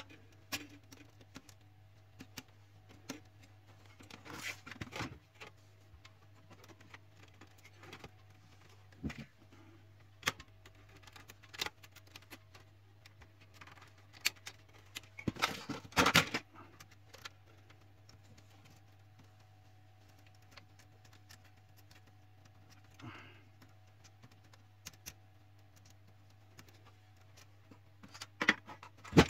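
Scattered clicks, taps and short rattles of hand work on a laser printer's plastic and metal parts as screws are taken out and wire connectors unplugged, over a steady low hum. The loudest clusters come about four seconds in and around sixteen seconds.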